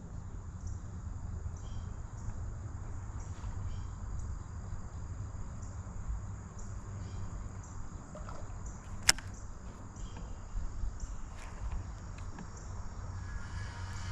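Outdoor ambience: a steady low rumble with faint, short high chirps repeating about once or twice a second, and one sharp click about nine seconds in.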